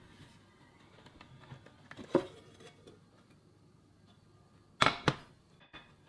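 A ceramic plate and a frying pan knocking together while a zucchini egg pancake is flipped onto the plate and slid back into the pan: one sharp clack about two seconds in, then two quick clacks near the end, the loudest.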